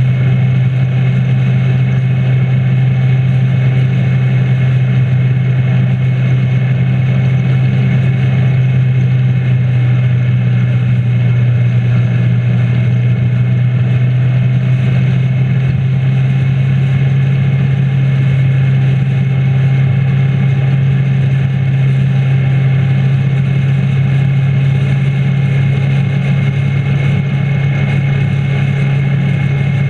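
Motorcycle engine running at a steady cruising speed, a constant low drone, with a steady rush of wind and road noise.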